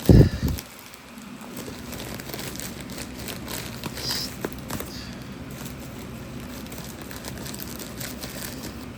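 Packaging being handled and opened by hand: crinkling and rustling with scattered small crackles, after a loud low thump right at the start.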